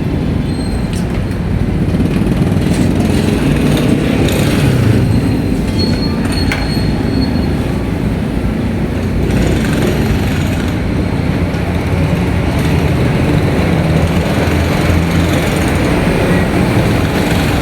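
Stick-welding arc from a new Ingco 350A inverter welding machine, crackling steadily with scattered sharp pops while a test weld is run.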